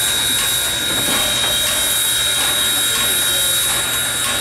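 Southern 630, a 2-8-0 steam locomotive, hissing steadily at rest with a constant high whine, and a few light knocks.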